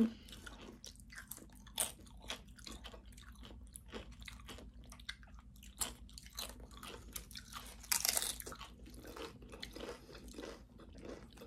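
Tortilla chips of loaded nachos being bitten and chewed: a run of crisp crunches and chewing, with one louder crunch about eight seconds in.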